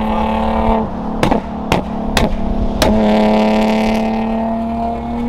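Car engine droning at steady revs during a highway cruise. The drone breaks off about a second in for a run of four sharp cracks, then resumes about three seconds in and holds.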